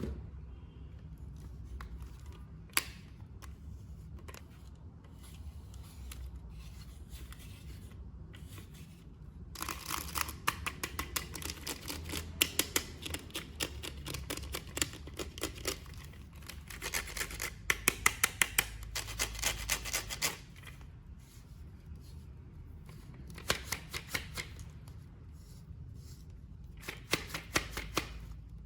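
Toy packaging being handled and opened: crinkling plastic and cardboard with sharp clicks and snips, coming in bursts, the longest about ten seconds in and two short ones near the end.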